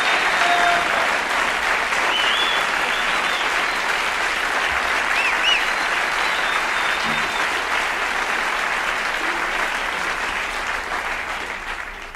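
Audience applause, steady and dense, with a few short whistles, dying away near the end.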